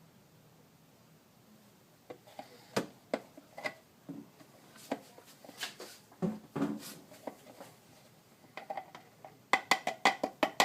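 Clicks and knocks of plastic quart oil bottles and a fill funnel being handled while oil is added to the engine, ending in a quick run of sharp clicks near the end.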